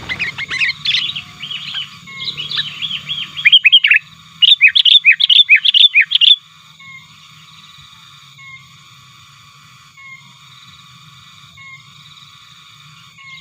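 Sooty-headed bulbul (kutilang) lure song: quick runs of loud, sharp chirping notes, the loudest run of about eight notes ending around six seconds in. After that only a faint, steady high-pitched background with a few weak notes is left. These are the aggressive calls used to lure and provoke wild bulbuls.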